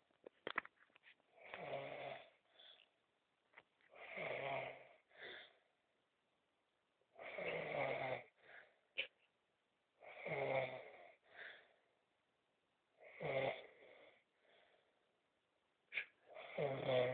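A sleeping man snoring: six rasping snores on the in-breath, about three seconds apart, each followed by a short, softer breath out. A few sharp clicks sound near the start.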